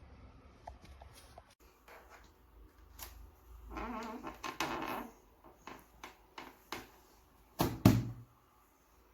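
Handling sounds: scattered clicks and knocks, a short pitched sound about four seconds in, then two loud thumps in quick succession near the end, like a small door or lid being shut.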